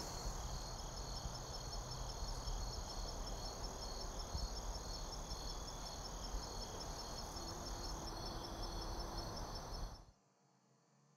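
Garden ambience of chirping insects: a steady high-pitched trill with an even pulse, over a low rumble. It cuts off suddenly about ten seconds in.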